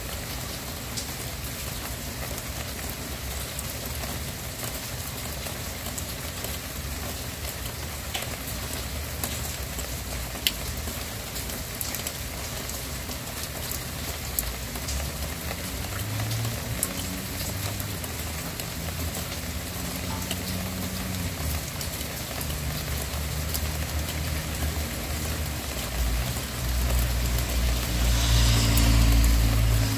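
Steady rain falling, a continuous hiss with scattered sharp drop ticks. From about halfway a low droning hum builds beneath it and is loudest near the end, with a deep rumble.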